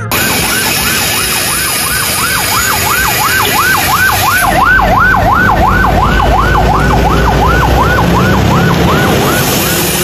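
Ambulance siren in a fast yelp, its pitch rising and falling about three times a second, over a steady rush of background noise.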